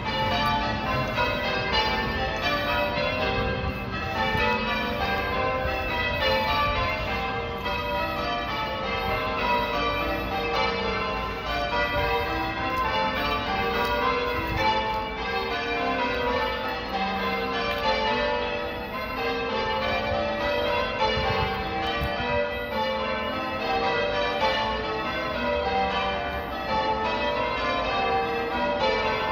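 Church tower bells being change-rung: a steady, unbroken stream of bell strokes following one another in sequence, each ringing on under the next.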